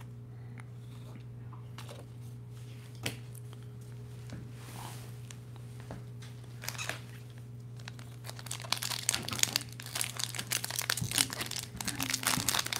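Plastic foil wrapper of a baseball card pack being torn open and crinkled by hand: a dense run of crackling that starts about two-thirds in and grows louder. Before it there is only a steady low hum and a few soft clicks.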